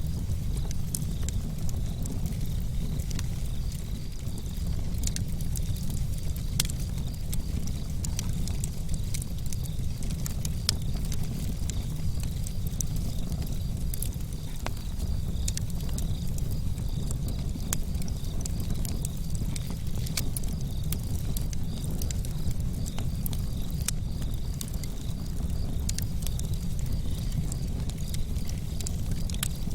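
Wood campfire burning: frequent sharp crackles and pops from the burning wood, scattered irregularly over a steady low rumble.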